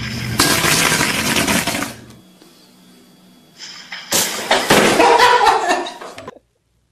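A loud noisy scuffle in the first two seconds, then a sudden clatter as an ironing board with a cat on it tips over, mixed with laughter; the sound cuts off abruptly near the end.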